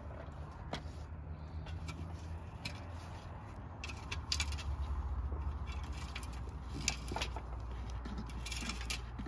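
Light knocks and scrapes of a thin wooden rolling pin on a round board as flatbread dough is rolled out, heard as scattered short clicks over a steady low rumble.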